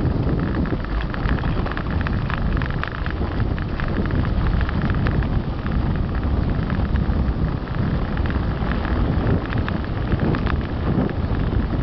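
Wind buffeting the microphone and tyre roar on a concrete path as a mountain bike rolls fast downhill, with many small rattling clicks from the bike running over the rough surface.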